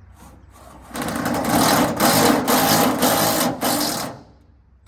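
A handheld power driver runs a tap through threads to clean them out. It goes in about four loud bursts with short breaks, from about a second in until about four seconds in, after a couple of brief blips.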